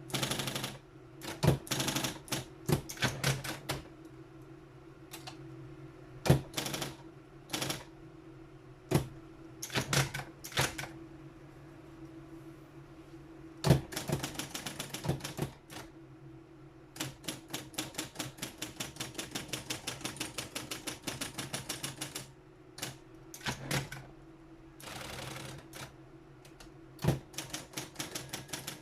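Triumph Adler 131D electric typewriter running with a steady motor hum while keys strike the paper in irregular bursts. About seventeen seconds in, the strikes come as a fast, even run for about five seconds. A short steadier whirr follows a few seconds later.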